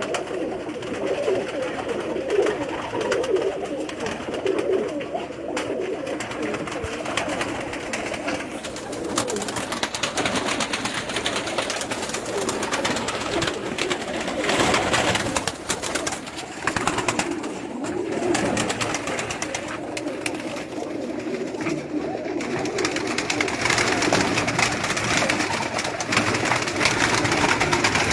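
A flock of pigeons cooing, many birds overlapping in a steady low chorus, with higher-pitched bird calls getting louder over the last few seconds.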